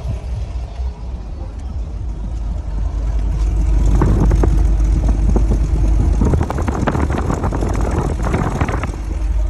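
A car engine running with a heavy low rumble that grows louder about three to four seconds in. A dense run of sharp knocks or clatters sounds over it from about four seconds in until near the end.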